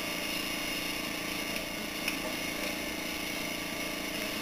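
Steady, unchanging hum and hiss with one faint click about two seconds in.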